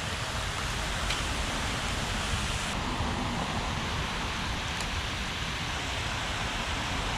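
Water pouring over a concrete spillway weir: a steady rush of falling water.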